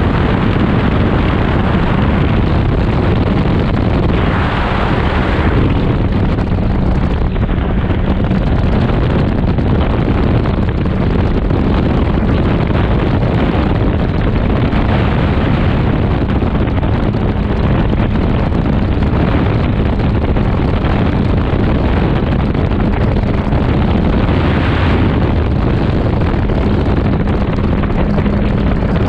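Gyroplane in flight heard from its open cockpit: a steady engine and propeller drone under heavy wind rush on the microphone, with louder gusts of wind about four seconds in and again near the end.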